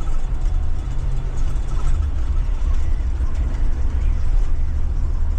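Ford 7.3 L gasoline V8 of a Blue Bird Vision school bus running, a steady low rumble heard from inside the bus.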